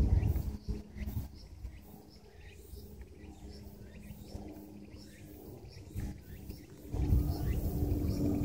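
Domestic cat purring close to the microphone while being stroked, a low rapid rumble that is loud in the first second, fades, and swells again about seven seconds in. Faint high chirps repeat in the background.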